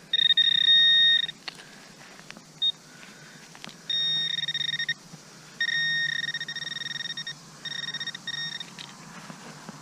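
Metal detector sounding a steady, high electronic tone in a series of bursts about a second long, cutting in and out as it is swept over a buried metal target.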